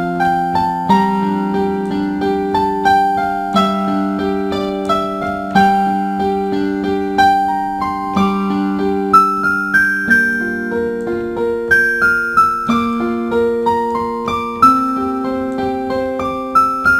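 Background music: a solo keyboard, piano-like, playing an unhurried melody over chords, each struck note fading away.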